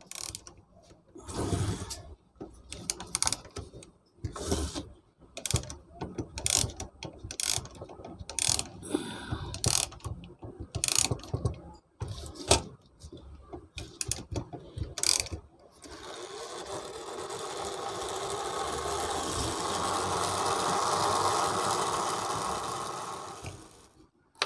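Brass wall-clock movement being assembled: sharp metallic clicks and taps as plates and gear wheels are handled and seated. About two-thirds of the way in, a steady mechanical whirr from the gear train takes over, swelling and then fading over some eight seconds.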